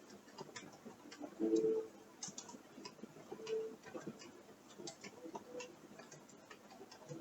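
Irregular creaks and ticks, with two short pitched creaks standing out, about one and a half and three and a half seconds in.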